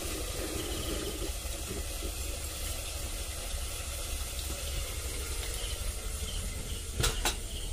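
Steady hiss of curry sizzling in a hot kadai over a wood fire, with two short knocks about seven seconds in as the pan is handled.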